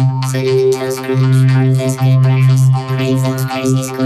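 Electronically distorted commercial audio that comes out as a loud, steady, synthesizer-like buzzing drone. It holds one low pitch with a dense stack of overtones and wavers only slightly.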